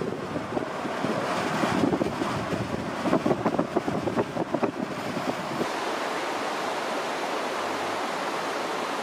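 Wind buffeting the microphone, a noisy rush that gusts hard in the first half and settles into a steady roar for the last few seconds.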